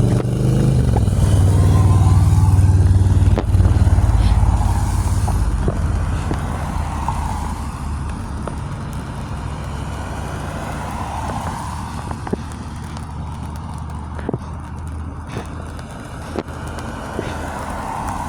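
A road vehicle passing, its low rumble loudest in the first few seconds and then slowly fading away. Under it is a steady hiss of rain with scattered faint ticks.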